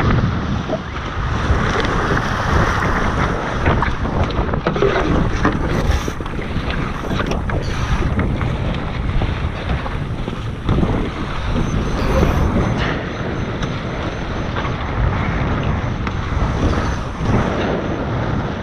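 Wind buffeting the onboard microphone over water rushing and slapping along the hulls of a Tornado racing catamaran under sail, in uneven gusts and surges.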